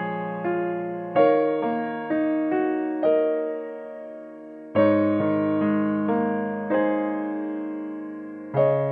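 Background piano music: slow notes and chords, each struck and left to fade, with fresh chords about a second in, near the middle and near the end.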